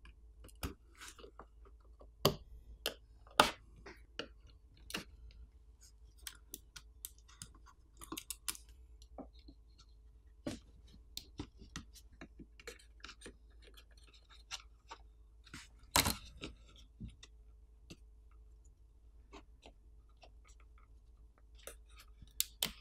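Scattered small clicks and taps of metal and plastic pry tools on a tablet's circuit board and frame as the connector latches are flipped up, a few of them sharper and louder, over a faint steady hum.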